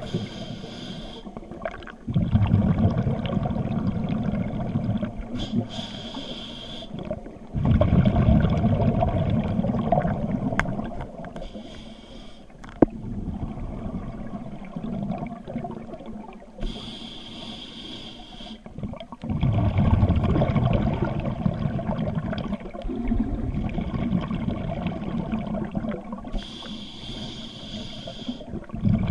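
Scuba diver breathing underwater through a regulator: a short hiss at each inhalation, followed by a few seconds of low bubbling as the exhaled air escapes, about five breaths in a slow cycle.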